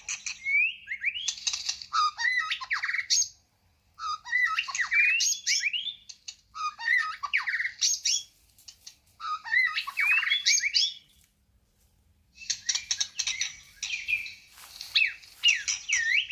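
White-rumped shama singing: about five phrases of rich, gliding whistles mixed with harsh, rapid chattering notes, each phrase lasting two to four seconds with a pause of about a second between them.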